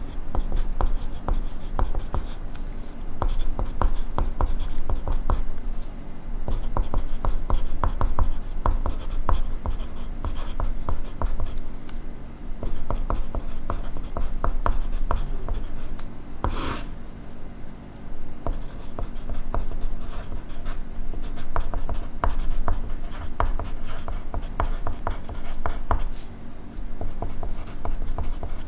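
Pencil writing on paper: a steady run of short scratching strokes with small ticks, and one brief sharper sound about two-thirds of the way through.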